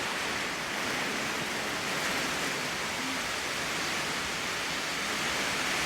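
Storm wind blowing hard and steadily, an even rushing noise with no breaks.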